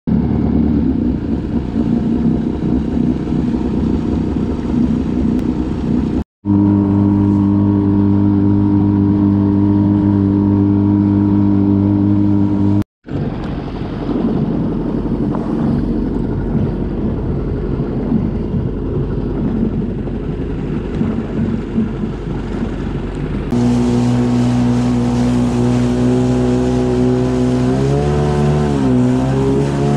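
Jet ski engine running under way over the rush of water, its note holding steady for stretches, then dipping and rising again near the end. The sound breaks off completely twice, briefly, in the first half.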